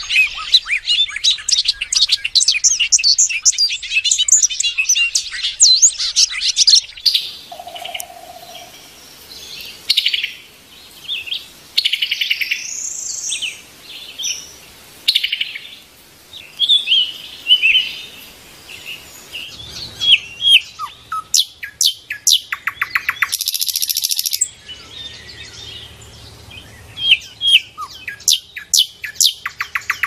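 Small songbirds chirping and calling. A dense run of rapid, high chirps lasts about the first seven seconds, then gives way to scattered varied calls and whistles, with quick trills a little before the end and again at the end.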